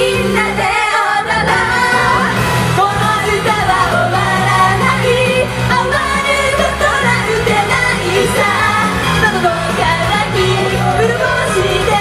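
Japanese idol pop group singing live over a loud pop backing track; the bass drops out briefly about a second in.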